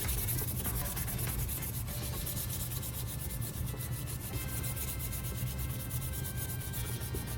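Fine-grit sandpaper rubbed by hand over cured filler on a plastic casing: a continuous scratchy rasp of quick back-and-forth strokes.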